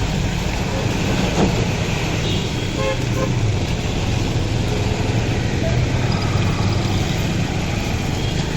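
City street traffic in heavy rain: a steady wash of rain and road noise with engines running, and car horns tooting briefly about two to three seconds in.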